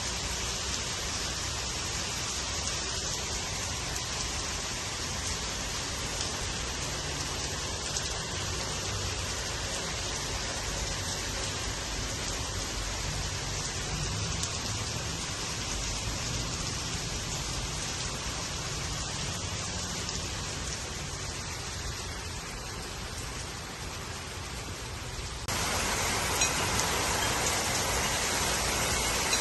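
Heavy rain falling steadily, an even hiss of drops on surfaces. About 25 seconds in it turns abruptly louder.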